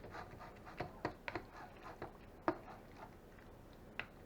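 A few faint, scattered clicks and taps of something being handled, with quiet room tone between them.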